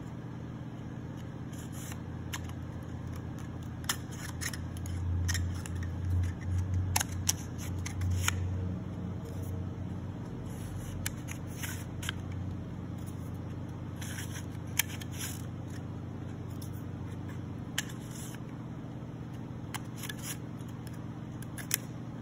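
Thin laser-cut plywood baffle pieces clicking, tapping and scraping as they are slotted together by hand, over a steady low hum. A stretch of louder low bumps comes in the middle.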